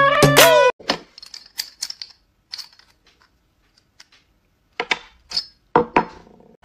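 Intro music cuts off within the first second. Then small objects are handled and put down on a wooden tabletop: scattered sharp clicks and taps, with a few louder knocks near the end.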